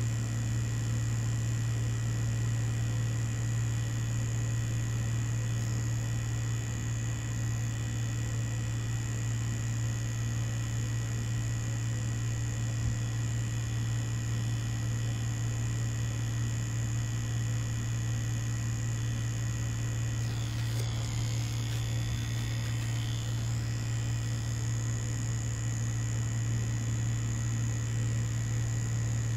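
Mummy Anubis tattoo machine buzzing steadily, running without pause as the needle works.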